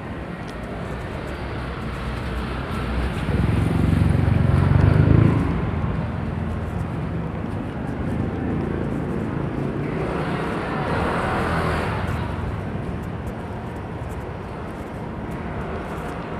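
Steady city traffic noise. A motor vehicle passes close about four to five seconds in, the loudest moment, and a second swell of traffic noise comes about ten to twelve seconds in.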